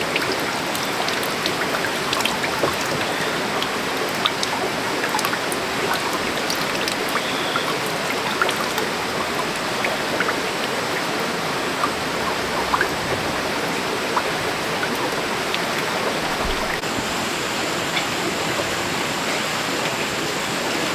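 Steady rushing of water, with scattered small ticks over it.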